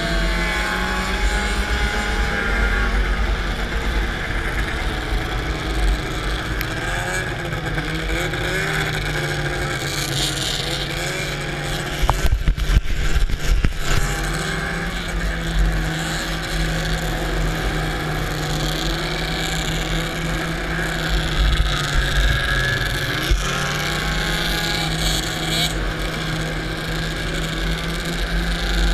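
Snowmobile engine running at high revs under race load, heard from the rider's helmet, its pitch holding mostly steady with small rises and dips, over heavy wind rumble on the microphone. About twelve seconds in there are two seconds of loud, irregular knocking and buffeting.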